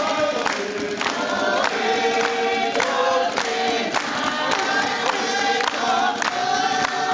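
A group of men and women singing together like a choir, with hand-clapping on the beat about twice a second.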